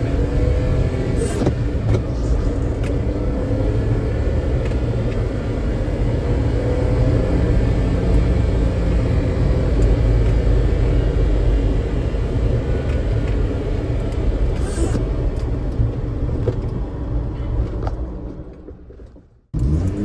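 Honda Acty kei truck's small three-cylinder engine on its stock exhaust, heard from inside the cab as a steady, loud low drone. It fades out near the end.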